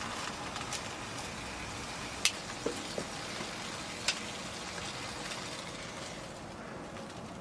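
Steady hiss of a small canister gas stove burning on low flame under a foil-wrapped apple. A few short sharp clicks come through it, four of them between about two and four seconds in.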